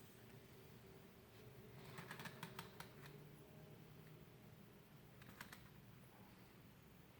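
Near silence broken by faint sharp clicks: a quick run of them about two seconds in, and a few more about five seconds in.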